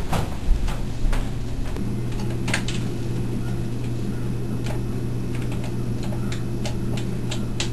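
Footsteps, then the buttons of a wall-mounted telephone keypad being pressed: a scattered series of short, sharp clicks over a steady low hum.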